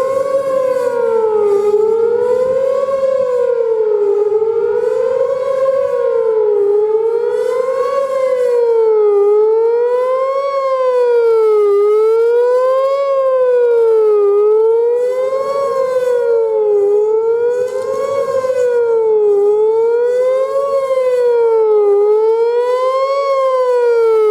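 Whelen WPS-4004 electronic outdoor warning siren sounding its fast wail test tone. The pitch climbs and falls smoothly, one cycle about every two and a half seconds, with strong echoes off the surroundings.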